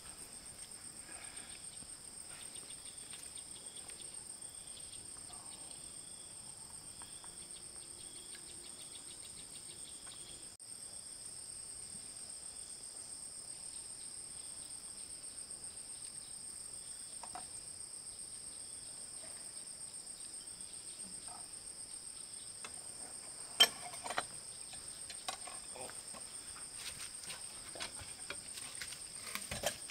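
Insects chirring as a steady, high-pitched chorus. In the last quarter, scattered sharp knocks and clicks come in, the first of them by far the loudest.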